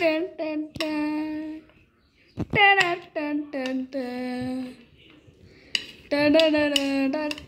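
A fairly high voice humming a tune in long held notes that glide from one pitch to the next, with a few short clicks in between.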